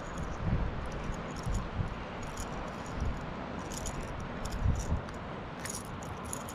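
The small rattles inside a red lipless crankbait clatter in short irregular bursts as the lure is handled, over wind buffeting the microphone.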